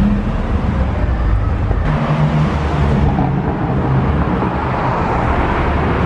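Cars driving past close by on a city street: a steady mix of engine and tyre noise from passing traffic.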